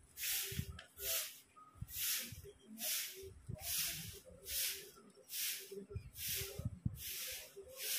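Broom sweeping dust off paved concrete ground: rhythmic swishing strokes, about two a second.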